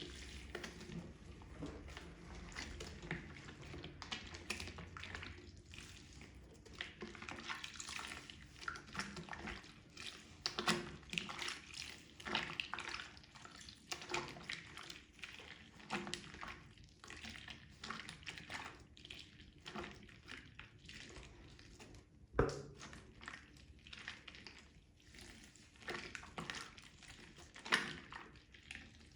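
Wet makeup sponge being squeezed and squished in soapy water: a continuous run of irregular squelches and splashes, with one sharper tap about two-thirds of the way in.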